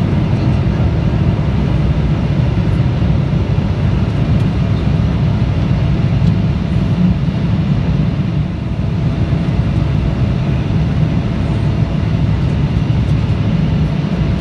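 Steady low rumble of jet engines and rushing air heard inside the cabin of a SkyWest-operated Embraer E175 regional jet climbing after takeoff.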